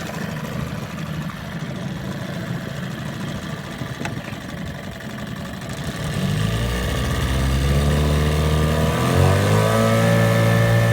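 1982 Evinrude 9.9 hp two-cylinder two-stroke outboard motor running slowly, then throttled up about six seconds in: the engine note rises in pitch and gets louder, settling at a steady higher speed near the end.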